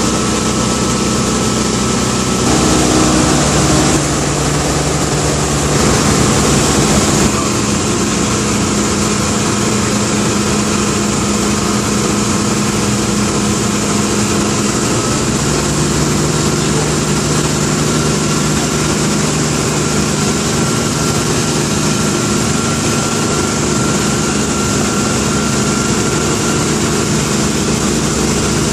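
Dornier Do 27's geared Lycoming flat-six engine and propeller droning steadily, heard from inside the cockpit while the plane descends on approach to land. There are two brief louder, hissier swells in the first seven seconds, and the engine note drops a little about halfway through.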